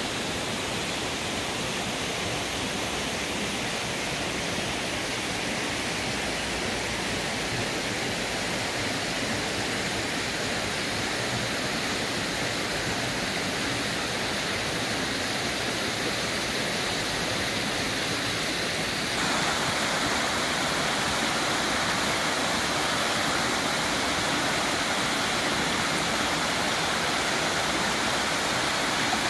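Steady rushing of water in a rocky mountain stream and waterfall. About two-thirds of the way through it suddenly steps up, louder and brighter.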